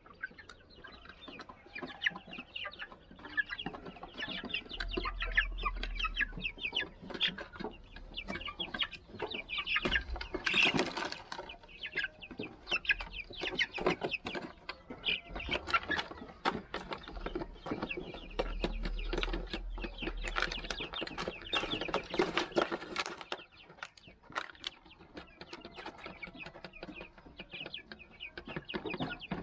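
A flock of 51-day-old Silver Laced Wyandotte chicks calling constantly while they feed, a busy stream of short clucks and peeps with no pauses.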